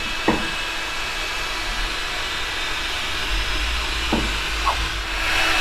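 Electric heat gun blowing steadily: a rushing air hiss over a steady low motor hum. The hiss gets louder about five seconds in.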